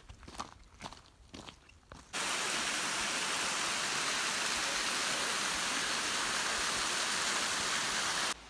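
Footsteps crunching on a trail for about two seconds, then an abrupt cut to a waterfall's steady rushing roar of falling water, which cuts off just as suddenly near the end.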